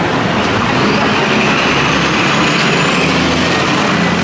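Steady city street traffic, with a truck's engine running close by and its low hum swelling about halfway through.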